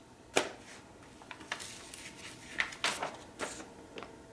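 A paper instruction sheet being handled and set down on a wooden table: a string of short, crisp rustles and crinkles at irregular moments, the loudest just under half a second in.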